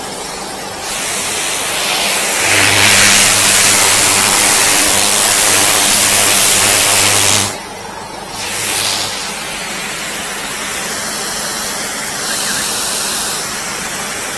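High-pressure water jetter spraying from a hand lance: a loud, steady hiss of water with a low hum underneath. About seven seconds in the spray drops sharply and carries on more softly.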